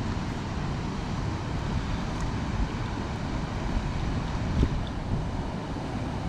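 Steady rushing noise of wind buffeting the microphone over spillway water, with one short knock about four and a half seconds in.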